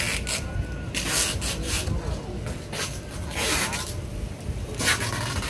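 Several short scraping and rubbing sounds of fish pieces and a hand moving over the plastic-covered cutting table, over a steady low background rumble.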